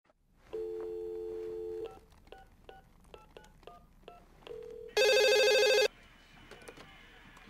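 Telephone dial tone held for about a second and a half, then a quick run of touch-tone keypad beeps as a number is dialled. About five seconds in comes one loud trilling phone ring, lasting about a second.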